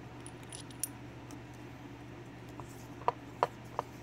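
Small clicks and taps from a gutted brass Lockwood lock cylinder and its key being handled, with a few sharper taps from about three seconds in as the cylinder is set down on a wooden tray. Throughout there is a low steady hum.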